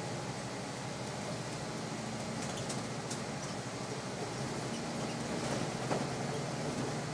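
City bus engine and road noise heard from inside the cabin while the bus moves slowly in traffic: a steady hum and rumble.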